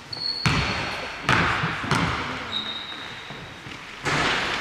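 Basketball bouncing on a gym floor, several sharp bounces spaced under a second apart, with short high squeaks. It gets louder and noisier near the end.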